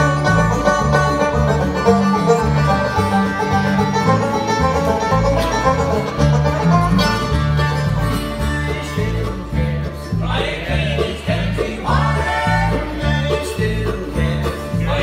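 Live bluegrass band playing an up-tempo song on fiddle, five-string banjo, mandolin, acoustic guitar and upright bass, with the bass thumping a steady beat under fast picked strings. A singing voice comes in about ten seconds in.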